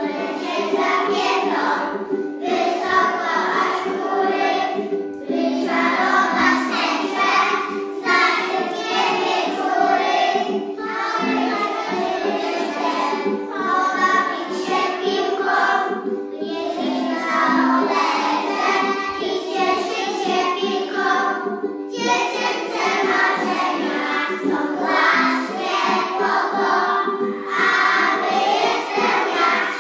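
A group of preschool children singing a song together in unison, in phrases with short breaks between them, over a steady instrumental accompaniment.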